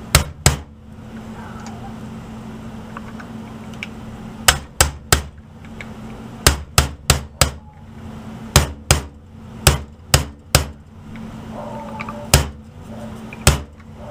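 Hammer tapping a punch to drive a roll pin into an AR-15 lower receiver, seating the trigger guard. The taps are sharp and light, coming in short groups of two to four with pauses between, about seventeen in all, over a faint steady hum.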